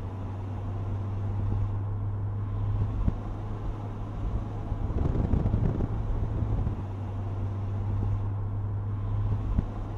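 A car driving, heard from inside the cabin: a steady low engine and road drone, with a couple of short bumps.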